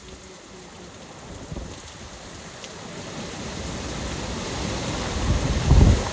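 Heavy rain and wind from Hurricane Nicole, growing steadily louder, with a gust hitting the microphone as a low rumble near the end.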